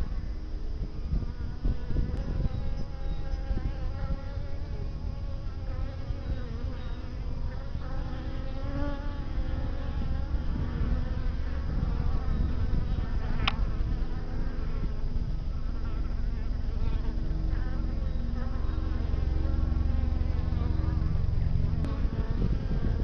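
Native black honey bees (Apis mellifera mellifera) buzzing in flight around a hive entrance: a hum of many overlapping, wavering pitches over a steady low rumble, with one brief click about midway.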